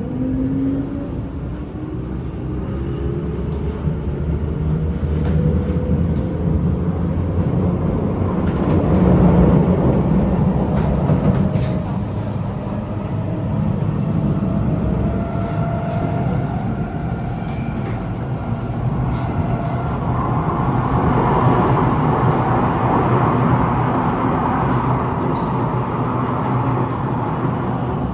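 Interior of a Kawasaki–Nippon Sharyo C751B MRT train running between stations. The motors whine up in pitch as it gathers speed early on, then give way to steady wheel-on-rail rumble with a few light clicks.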